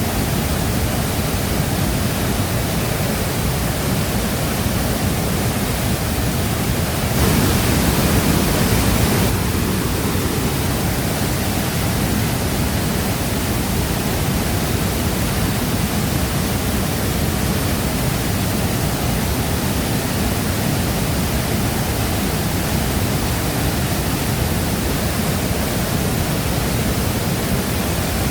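Shifen Waterfall's water falling steadily in a continuous rush. It swells a little louder for about two seconds, about a quarter of the way through.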